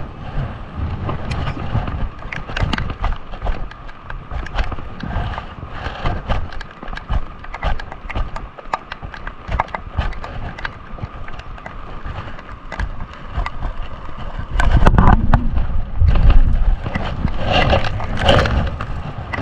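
A baitcasting reel being cranked while a bass is fought in: many irregular clicks over a faint steady whine. From about fifteen seconds in, louder thrashing and handling noise as the fish comes up to the kayak.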